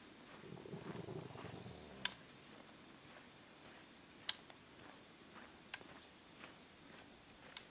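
Faint footsteps on a snowy trail: a few sharp, separate crunches one to two seconds apart over a faint steady high tone, with a brief low rumble about a second in.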